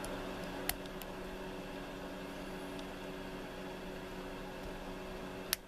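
Faint clicks of a lock pick working the pins of an older Corbin pin-tumbler lock under tension, a sharper click near the end, over a steady low hum.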